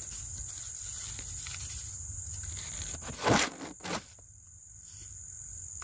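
Steady high-pitched chirring of insects, crickets or similar, in a summer garden. Two short, louder sounds break in a little past the middle.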